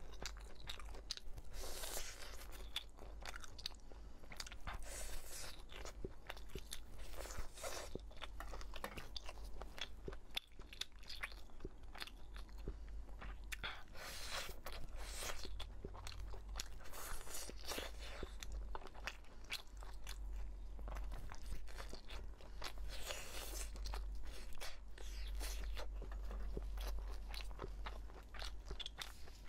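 Close-miked eating: biting into and chewing grilled, chili-spiced meat skewers, with irregular bites, chews and mouth sounds throughout.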